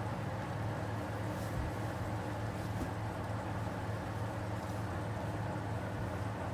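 Steady low hum with an even hiss over it, holding at one level throughout.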